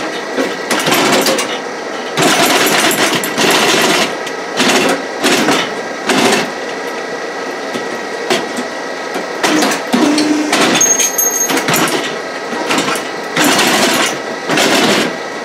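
Hydraulic power unit running steadily while a homemade exoskeleton's solenoid-switched hydraulic arms move, with irregular louder surges of fluid and machinery noise, each lasting under a second to about a second, as the arms are driven.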